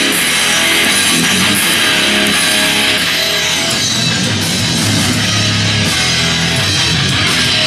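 Loud rock music with electric guitar and drums, played through a home-theater surround sound system's speakers in a garage.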